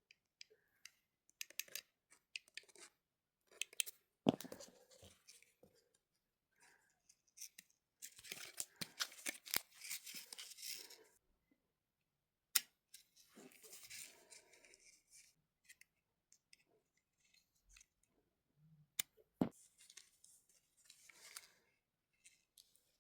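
Handling noise from a small plastic 1/64-scale RC car: scattered light clicks and taps, with a few stretches of scraping rustle, the longest lasting about three seconds.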